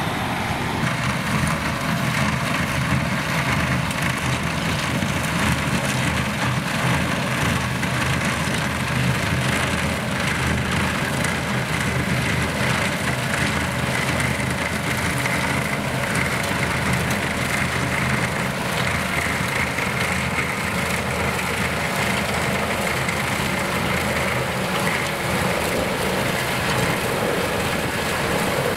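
Heavy diesel engine of a Vervaet Beet Eater 617 self-propelled sugar beet harvester running steadily under load while it lifts beet, a continuous deep drone with no break.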